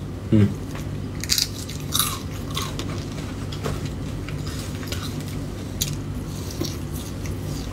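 A person biting and chewing fried tofu with raw bird's eye chili close to the microphone, with a few short sharp crunches spread through. A steady low hum runs underneath.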